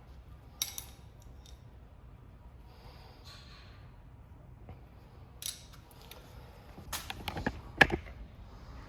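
A few scattered sharp clicks and knocks, like tools and metal parts being handled during repair work, with a quick cluster of them near the end that holds the loudest knock.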